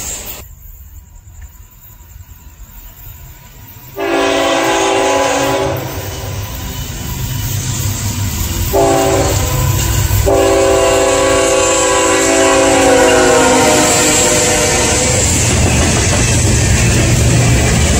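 A CSX freight train's locomotive horn sounds several chords as the train approaches: a long blast about four seconds in, a short one, then another long one. After that the locomotives rumble and the freight cars clatter past on the rails.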